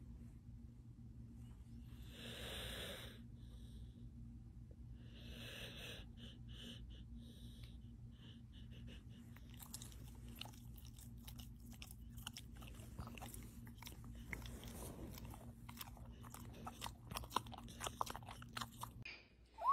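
A dog breathing noisily twice in its sleep, then chewing a small treat with quick wet clicks and smacks for about ten seconds. A faint steady low hum runs underneath.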